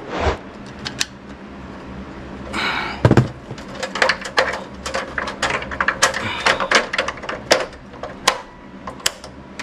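Sharp clicks and knocks of tools and metal parts being handled at an electrical breaker panel: a thump about three seconds in, then irregular clicks, several a second, through the second half.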